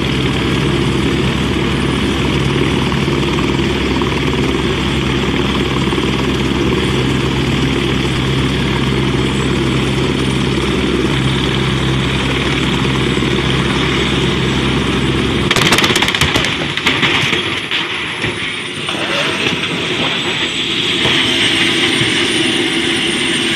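Turbine helicopter running on the ground, its main rotor turning with a steady low beat over the engine whine. About fifteen seconds in, the rotor blades strike a pickup truck in a sudden burst of clattering and banging; the rotor beat then stops while a high turbine whine goes on, wavering in pitch.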